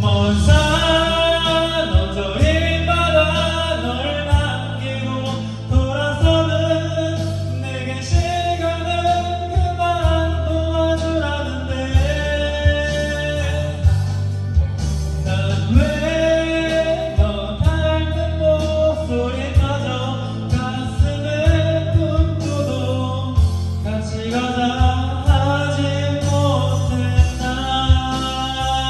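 Background music: a song with singing over a steady bass line and beat.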